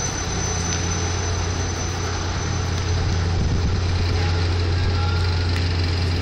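Medical helicopter running on the helipad: a steady low rotor and turbine drone with a thin high whine, getting a little louder about three seconds in.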